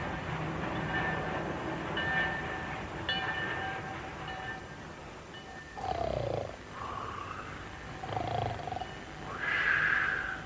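Cartoon sound effects: a steady steam-train rumble at the station for about five seconds. Then, from about six seconds in, a sleeping man snores in exaggerated fashion: deep snorts alternate with whistled breaths out, and the last and loudest whistle comes near the end.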